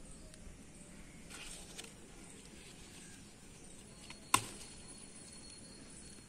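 Faint background noise with one sharp click a little over four seconds in, and a faint high steady tone from about then on.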